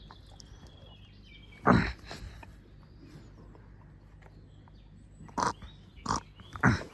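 Animal sounds: a faint high thin whine in the first second, then a loud short call about two seconds in and three brief ones near the end.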